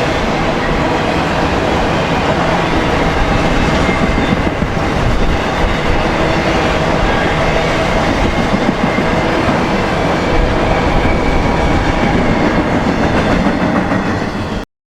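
Freight train of autorack cars rolling past, with steady wheel-on-rail rumble and clickety-clack over the rail joints. It cuts off suddenly near the end.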